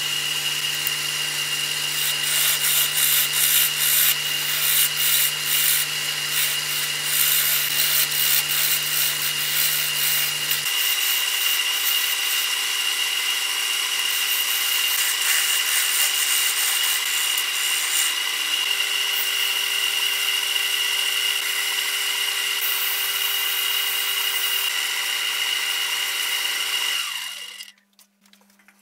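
Small wood lathe running with a steady motor whine while a turning chisel scrapes and cuts a spinning wooden handle blank. The cutting is busiest in the first ten seconds, and the lathe stops shortly before the end.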